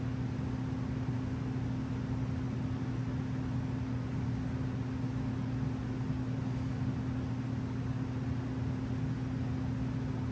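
A steady low hum over an even hiss, with no change in pitch or level: a machine running in the room.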